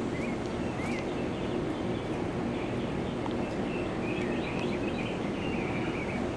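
Steady background hum and hiss with small birds chirping faintly and repeatedly over it.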